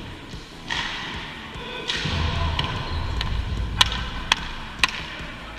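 Ball hockey play: three sharp clacks of stick and ball about half a second apart near the end, over a low rumble of movement.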